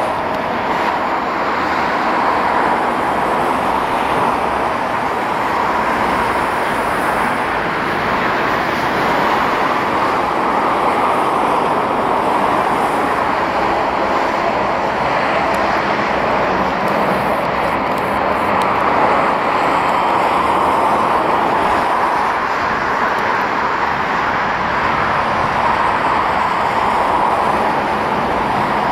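Boeing 737's jet engines running at taxi power: a steady rushing noise that holds at much the same level throughout.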